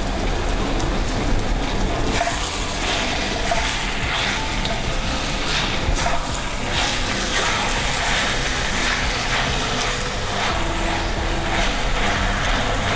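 Chopped green chillies sizzling as they fry in hot oil in a stainless-steel wok. From about two seconds in, a wooden spatula scrapes and tosses them in quick, repeated strokes.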